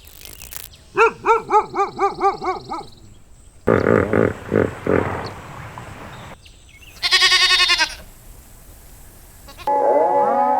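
A string of different animal calls cut one after another. First comes a fast run of about eight short pitched bleat-like calls. Rough, noisy calls follow, then a single wavering call, and near the end a new cluster of overlapping calls that glide in pitch.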